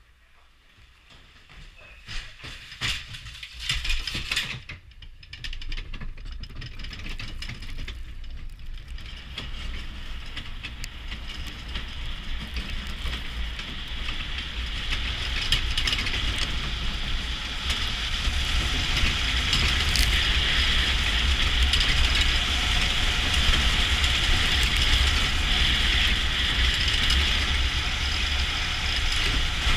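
Bobsled's steel runners on the ice track, a steady rumble and hiss that grows louder as the sled gathers speed, then holds. A few sharp knocks come in the first seconds of the run.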